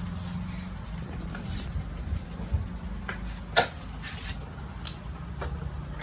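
Sharp metallic clicks and scrapes as a motorcycle's wheel axle is worked out of the hub, the loudest clink about three and a half seconds in, over a steady low hum.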